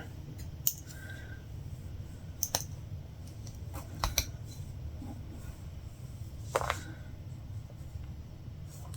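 Latch hook tool pulling yarn knots through rug canvas: a few sharp clicks of the hook and its latch, a second or two apart, over a low steady hum.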